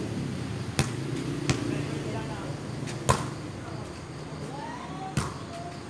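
A volleyball being hit during play: four sharp slaps, the loudest about three seconds in, with players' voices in the background.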